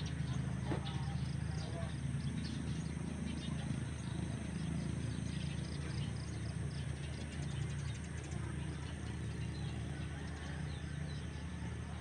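Outdoor ambience: birds chirping over a steady low hum.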